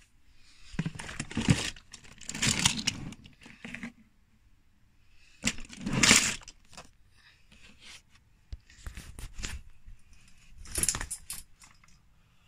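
Small die-cast toy cars clinking and rattling against each other as they are handled on a shelf, in several short bursts with quiet gaps, loudest about six seconds in.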